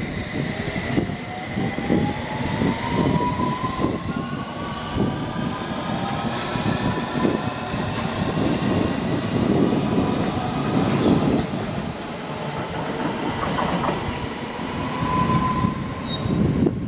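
A train accelerating. Its motor whine rises in pitch over the first few seconds, then holds steady, over a continuous rattle of wheels knocking on the rails.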